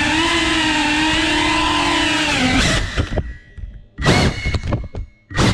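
FPV quadcopter's motors and propellers whining at steady throttle, the pitch wavering slightly. About two and a half seconds in the throttle drops off, and the motors then come back in short bursts that spool quickly up and down.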